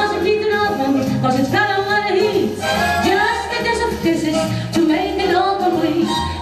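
A woman singing a song live, holding long sung notes over instrumental accompaniment.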